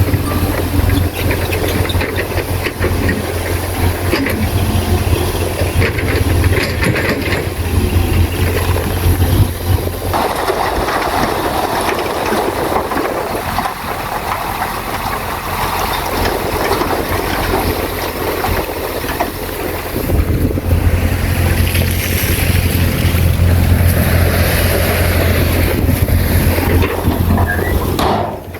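Diesel engine of heavy earthmoving machinery running under load, with a strong low drone that fades out about ten seconds in and comes back about ten seconds later. The sound breaks off briefly near the end.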